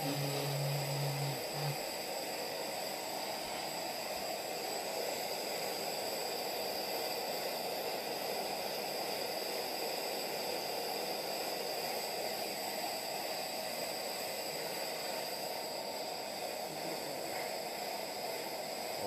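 Pressurized MSR Simmerlite stove, converted to burn denatured alcohol, running at full flame under a pot: a steady, even rush of burner noise. A low hum sounds over it for the first couple of seconds.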